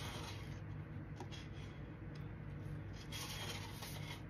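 Faint rubbing and rustling of gloved hands handling a plastic piping bag filled with white epoxy resin, over a low steady hum.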